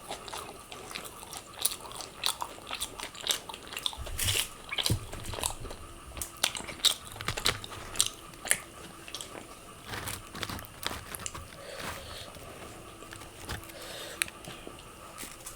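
Close-miked eating: a person biting and chewing crunchy food, with irregular sharp crunches between quieter chewing.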